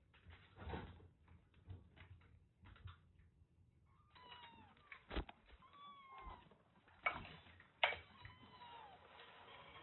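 Kittens mewing, several short high calls that bend in pitch in the second half, with sharp knocks and rattles from the wire cage as they climb on it.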